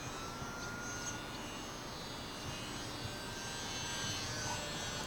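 Faint whine of a small brushless electric RC plane's motor and propeller, the E-flite P-47 UMX, flying at a distance; its pitch drifts slightly as it moves. Insects buzz high behind it.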